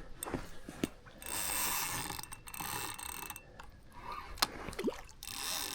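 Carp fishing reel being wound in while a hooked carp is played close in: a whirring, ratcheting gear noise in stretches of a second or two, with a few sharp clicks between.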